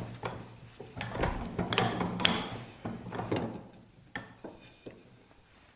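A metal doweling jig and wooden workpiece being handled and set up: a string of irregular clicks and knocks that thin out and go quiet near the end.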